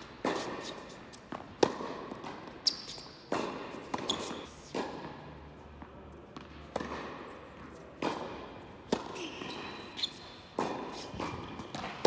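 Tennis balls struck by rackets and bouncing on an indoor hard court during a rally, each sharp pop echoing in the large hall. There is a short lull about halfway through, between points.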